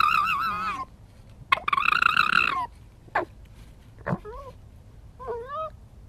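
Red fox screaming: two long, wavering, high calls of about a second each, then two shorter calls near the end.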